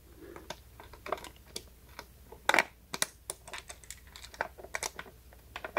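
Irregular small plastic clicks and taps as the plastic swivel mount of a Sunforce solar motion light is fitted back together by hand, with a couple of sharper clicks about halfway through.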